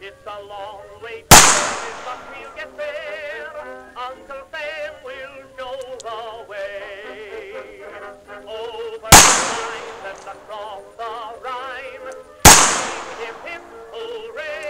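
Three single shots from a Colt Model 1909 double-action revolver in .45 Long Colt, each a sharp crack trailing off in a short echo. The first comes about a second in, then a long gap to the second about nine seconds in, and the third follows about three seconds later. Background music with a warbling, singing-like melody plays throughout.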